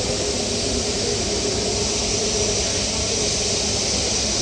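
Jet airliner engines running at a distance: a steady hiss with a faint, even whine underneath and a low rumble.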